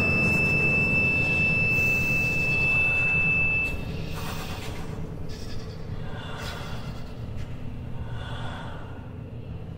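Small chamber ensemble playing extended techniques: a single held high note cuts off about a third of the way in. After it come breathy, unpitched air sounds from wind instruments played without reeds or mouthpieces, over a low rumble.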